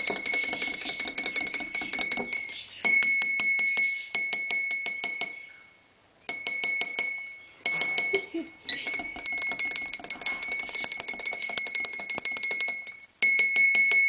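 Coffee cup being struck in quick succession: fast, ringing clinks with a steady high ring, coming in runs of one to four seconds with short pauses between them.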